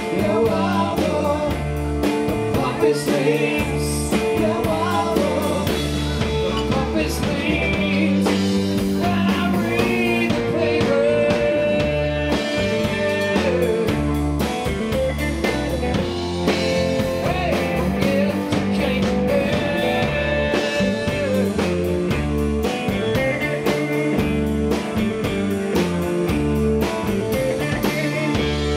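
Rock band playing live: electric guitars, electric bass and drum kit, with a sung lead vocal over them.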